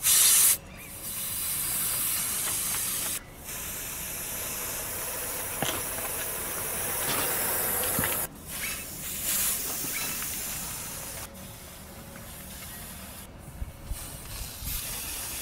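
Compressed air hissing out of a truck tyre's valve as the tyre is being deflated. A short loud burst at the start, then long steady hisses that stop abruptly and start again several times.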